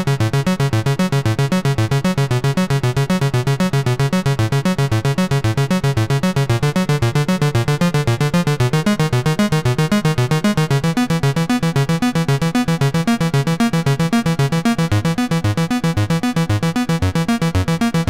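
Background synthesizer music: a looping keyboard line of fast, evenly repeating notes over a steady bass.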